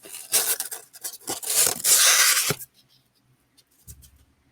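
Packaging rustled and torn as an item is unwrapped, with small clicks and a light knock about two and a half seconds in.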